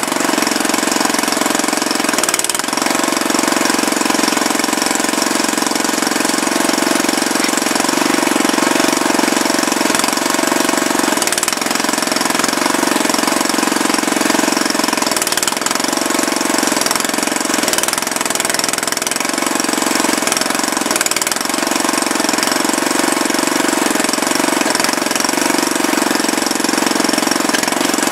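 Mini digger's engine running steadily while the digger scrapes and levels soil, its note dipping briefly several times as the arm and bucket work.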